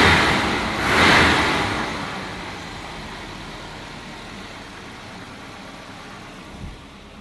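Volvo 740 engine revving in two surges about a second apart, then falling back to a low, steady running sound, with a brief knock near the end.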